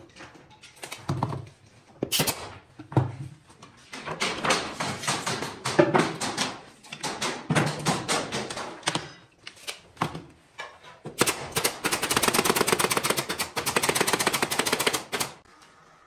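Clicking and knocking from hand work on wooden panels and trim, scattered at first, then a fast, even rattle lasting about four seconds near the end.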